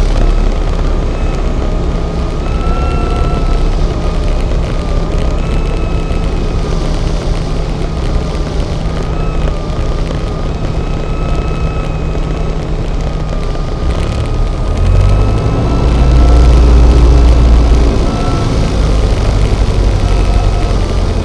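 Cessna 172's piston engine and propeller droning steadily, heard from inside the cabin on landing approach, with a steady whine over a deep rumble. The rumble swells louder for a few seconds about fifteen seconds in, then settles back.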